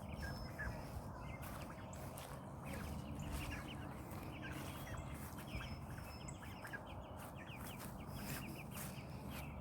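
Chickens clucking faintly in short runs of quick notes, over a low steady rumble.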